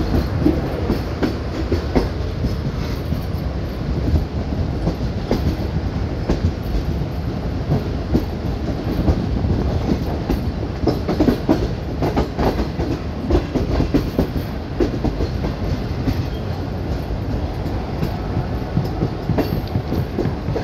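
Pakistan Railways Awam Express passenger train running along the line: a steady low rumble of the coaches with the wheels clicking irregularly over the rail joints.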